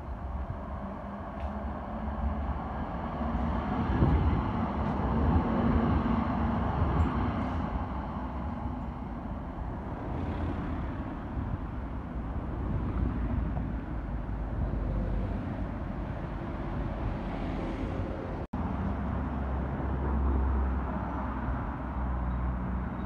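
Road traffic with a tram: cars drive past close by on a street with tram tracks while a tram comes up along the street track. The sound swells as vehicles pass and drops out for an instant about three-quarters of the way through.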